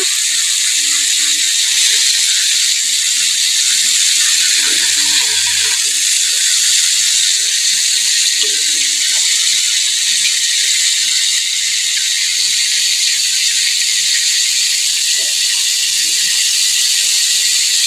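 Whole chicken deep-frying in hot oil in a small pot: a steady, loud sizzle of bubbling oil.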